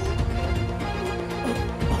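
Background film-score music: sustained chords over a pulsing low end.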